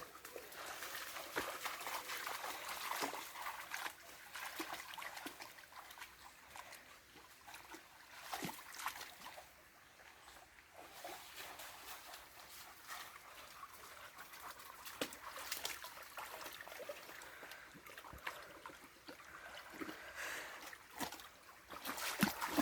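Shallow river water trickling, with a few faint clicks and light splashes.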